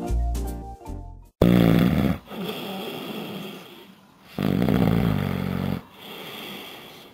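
A man snoring heavily: two loud snores about three seconds apart, each followed by a quieter breath. Piano music plays for the first second or so, then cuts off just before the first snore.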